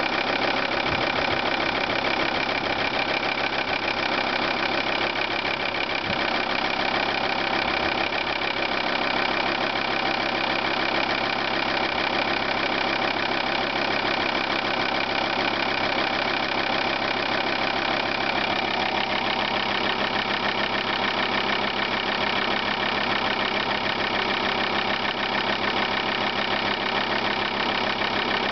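Volvo 850 2.5 TDI five-cylinder diesel engine idling steadily after a cold start, with a fast, even ticking over the idle. The noise is the one the owner puts down to the injection-pump belt tensioner.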